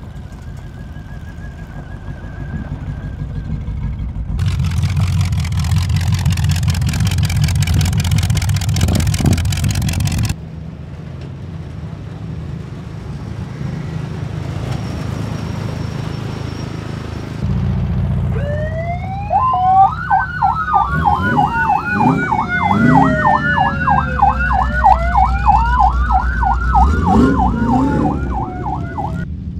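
Car engines running with a steady low rumble, in several clips cut one after another. For the last ten seconds or so, sirens sound: a slow rising and falling wail over a fast yelp.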